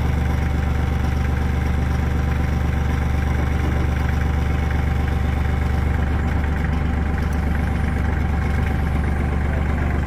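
Compact diesel tractor engine idling steadily.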